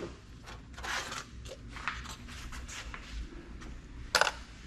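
Scattered light clicks and handling noises of computer parts being worked on by hand, with one sharp knock about four seconds in.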